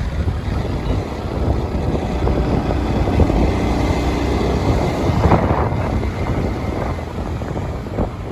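Wind buffeting the microphone: a loud, uneven rumble that rises and falls in gusts.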